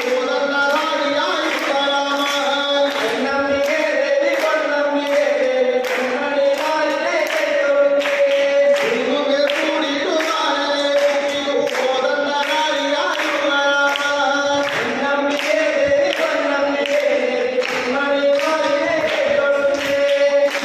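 A group of voices singing a song together in unison, held notes over a steady beat of about two strokes a second.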